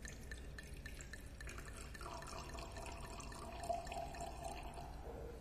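Red wine poured from a bottle into a wine glass: a run of small splashes and drips, then a steadier trickle into the glass from about two seconds in that fades out near the end.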